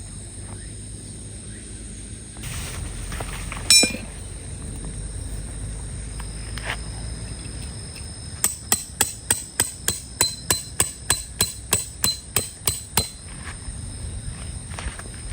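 A single ringing metallic clink about four seconds in, then a quick, even run of about seventeen hammer blows on metal, roughly four a second.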